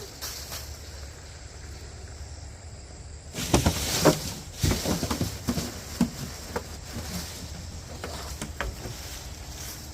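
Dry branches and brush rustling and snapping as they are handled, in a quick cluster of cracks about a third of the way in, then a few scattered snaps, over a steady low hum.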